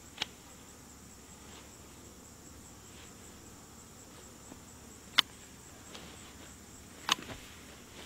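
Hand shears snipping weeds: three sharp clips, one at the start, one about five seconds in and one near the end. Behind them a steady high insect trill.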